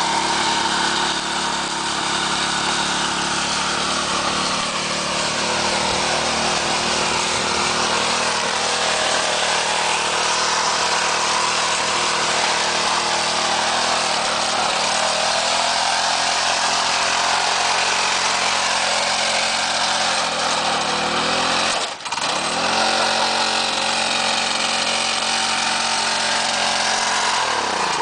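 A small single-cylinder lawn mower engine on a home-built riding mower runs steadily as it is driven. About 22 s in, the sound drops out sharply for an instant, then the engine speed climbs back up. Near the end the engine's pitch falls as it slows.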